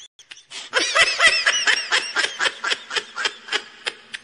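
A woman laughing hard: a long run of high-pitched laugh pulses, a few a second, starting about half a second in and fading toward the end.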